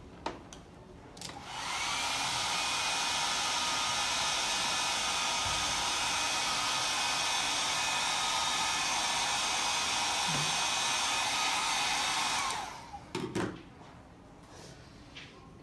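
Small handheld hair dryer switched on, coming up to speed about a second in and blowing steadily for about eleven seconds to dry wet watercolour paint, then switched off. A few short clicks and knocks as it is picked up and set down.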